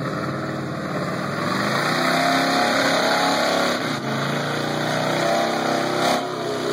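Lifted old Ford F-250 pickup's engine revving hard under load while towing a stuck vehicle out of deep mud, its rear tires spinning and flinging mud. The revs climb about a second and a half in, sag briefly about four seconds in, then climb again.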